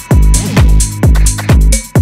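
Electronic dance music: a kick drum on every beat, about two a second, each with a falling thud, over a steady bass line and a thin sustained synth tone.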